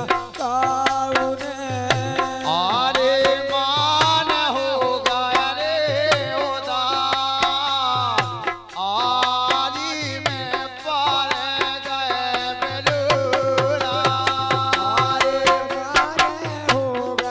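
Bundelkhandi Rai folk dance music: a hand drum beating a quick, regular rhythm under a gliding melody.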